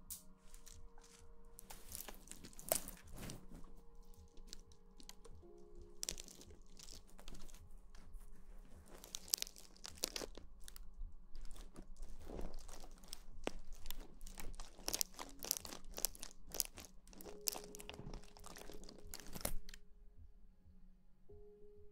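Crackly rustling, scratching and crunching close against a microphone, in irregular clusters that stop about two seconds before the end, over soft background music.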